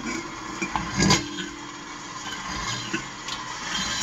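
KitchenAid 8-quart commercial bowl-lift stand mixer with a 1.3 HP motor running empty, its flat beater spinning in the stainless steel bowl. A short knock sounds about a second in.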